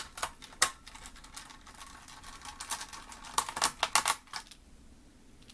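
A small screwdriver and screw clicking and scraping against the Mac Mini's internal frame in irregular little ticks, with a denser cluster of clicks about three and a half seconds in, as the last screw is worked toward its hole without being lined up.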